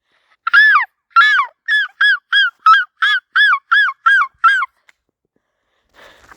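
Seagull giving its long call: a loud run of about a dozen laughing 'ah' notes, the first two drawn out, the rest short and quick at about three a second. It stops just before the end.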